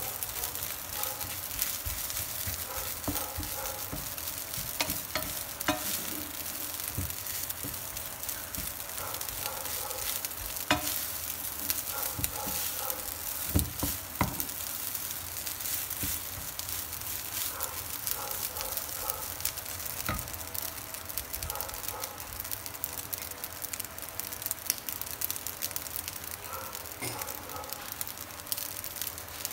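Cooked rice sizzling in a hot nonstick frying pan as it is stir-fried with a wooden spatula: a steady frying hiss with the scrape and rustle of stirring, and now and then a sharper knock of the spatula against the pan.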